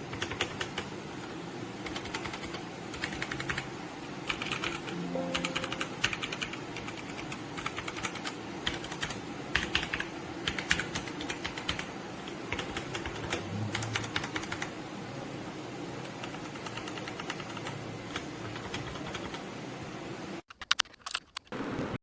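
Fast typing on a Redragon K552 mechanical keyboard with red linear switches: a dense, irregular run of key clacks that breaks off shortly before the end, followed by a few louder single keystrokes.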